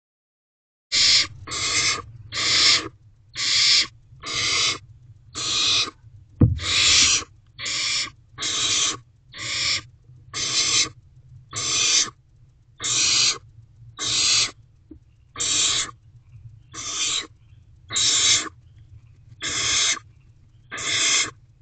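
Barn owl owlets giving their rasping begging hisses over and over, about one a second. A sharp knock sounds about six seconds in.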